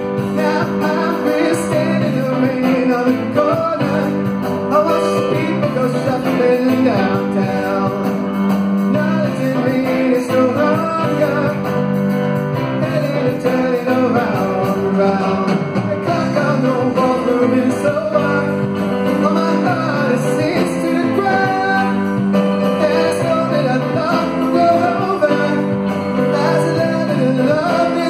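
Live rock band playing a song with electric guitars, keyboard and drums, under a lead vocal.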